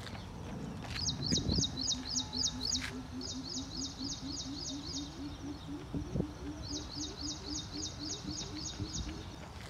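Birds calling: bouts of rapid high chirps, about four a second, stopping and starting three times. Underneath, a steady series of low hooting notes repeats about three times a second.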